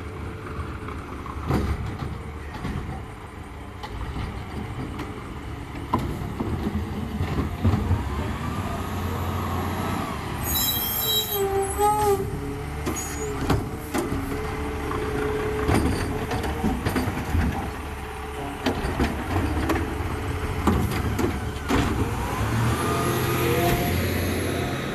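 Garbage truck engine running, with repeated clanks and knocks and a short burst of air-brake hiss about ten seconds in.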